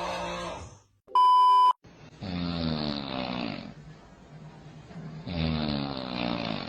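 A person snoring in long, loud snores that fall in pitch, a second and a half or so each, three in all. Between the first and second is a short, very loud electronic beep on one steady tone.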